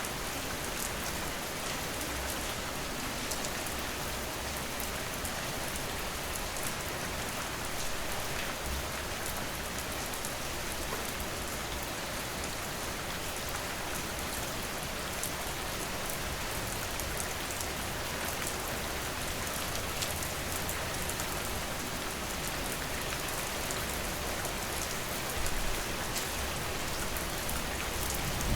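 Steady rain falling in an even hiss, with fine ticks of drops on a surface. A low rumble swells in the last few seconds.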